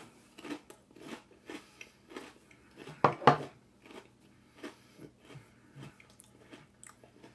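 Sugar Cookie Toast Crunch cereal squares being chewed: crisp crunches about two a second, loudest about three seconds in, then softer toward the end.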